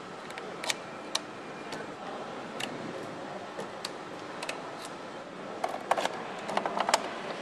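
Assembly-line hum with scattered sharp clicks and taps of motorcycle parts being fitted by hand, then a quick run of clicks and rattles in the last two seconds.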